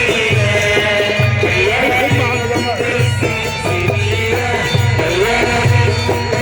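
Egyptian simsimiyya folk music played by a band, a Middle Eastern melody over a steady low beat.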